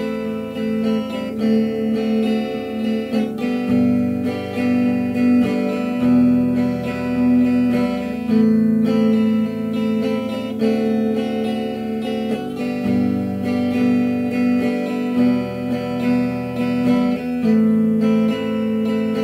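Background music led by strummed guitar, with chords changing every few seconds.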